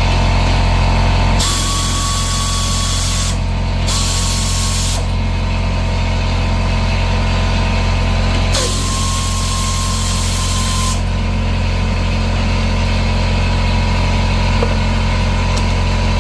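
Power tool running steadily while the shock absorber's bolts are taken out, with three bursts of high hiss: about a second and a half in, about four seconds in, and from about nine to eleven seconds in.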